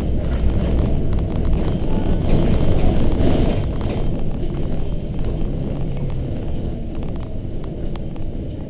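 Volvo B7RLE single-deck bus's six-cylinder diesel engine and road noise, heard from the front of the cabin while under way. The sound is loudest a few seconds in, then gradually falls away as the bus eases off and slows.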